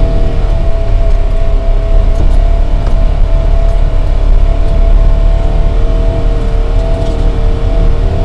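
Side-by-side utility vehicle driving over rough ground, heard from inside its cab: a loud, steady engine drone over a deep rumble, with a constant whine that a second, lower whine joins about five and a half seconds in, and a few small knocks.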